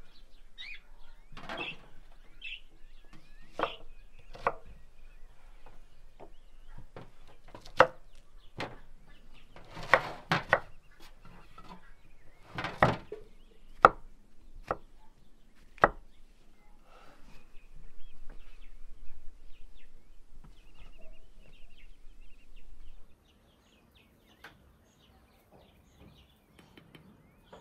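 Knife slicing mushrooms on a wooden cutting board: a series of irregular sharp chops as the blade strikes the board. Faint bird chirps in the background.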